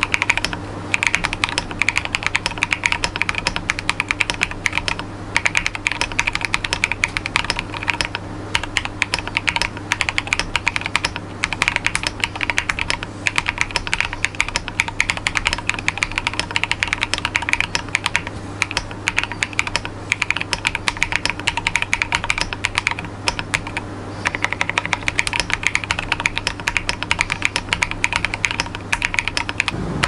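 Fast, continuous typing on a Through75 mechanical keyboard: lubed and filmed Cobalt switches in a top-mount, foam-filled case with an aluminium plate, keys clacking in a dense stream with short lulls about eight seconds in and again near the end.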